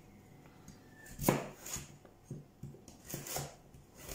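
Kitchen knife slicing a carrot on a wooden cutting board, the blade knocking the board: one loud chop about a second in, then several lighter cuts.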